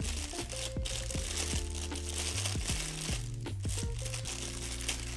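Thin plastic bag crinkling and rustling as a compact camera is worked out of it by hand, over background music with steady bass notes. The crinkling thins out near the end.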